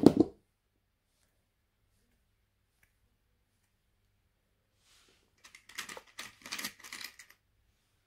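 A short thump at the very start, then, from about five and a half seconds in, a couple of seconds of quick clicking and clattering as small insulated crimp connectors are picked out of a compartment of their storage box.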